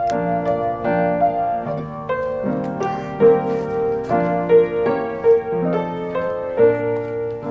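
Background piano music: sustained notes and chords, changing every half second or so.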